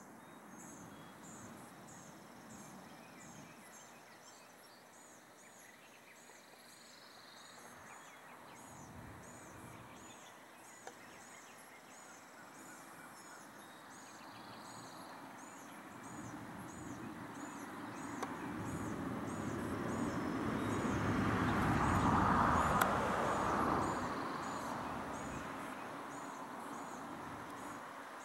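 Rural dawn ambience: a high, thin chirp repeats steadily about once a second. A broad rushing noise of a distant passing vehicle swells to its loudest about two-thirds of the way through, then fades.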